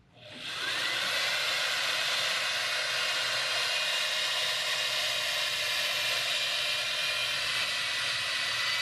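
Cordless drill spinning up over about a second, then running steadily at speed, driving a Kentucky flap sander against a metal trigger guard. The flap sander is a slotted dowel wound with abrasive strips, and it gives a high motor whine with a hiss of sanding.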